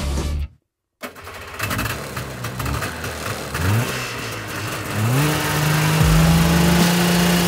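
The engine of a 1970s four-track Arctic Cat snowcat revving as the machine drives off through snow. Its pitch rises twice, then holds steady at a higher speed.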